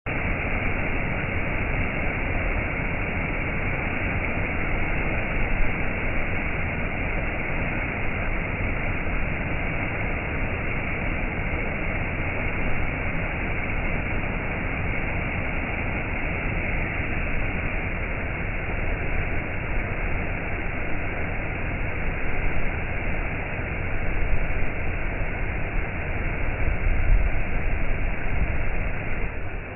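Stream water flowing and rushing steadily, a continuous even rush with no breaks.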